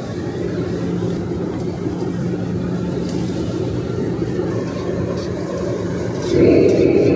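Commercial gas wok burner burning with a steady rushing flame noise and a low hum under a wok of stir-fried rice noodles. It gets clearly louder about six seconds in.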